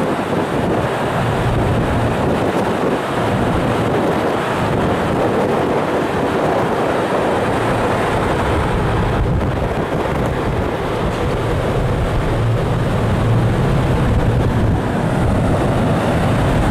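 Steady low rumble of a large car ferry's engines and funnel on the open deck, with wind buffeting the microphone.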